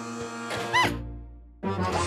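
Cartoon soundtrack music with comic sound effects: held notes, then a quick swooping squeak that rises and falls just under a second in, a fading low hum, and a new loud burst of sound near the end.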